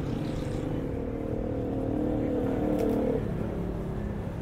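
A motor vehicle's engine note that rises slightly for about three seconds and then drops away, over a steady low rumble.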